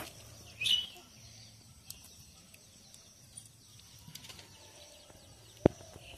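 Steel ladle stirring and scraping thick goat skin curry in a metal cooking pot, faint and uneven, with small ticks. A brief high squeak comes about half a second in, and a single sharp knock of the ladle near the end.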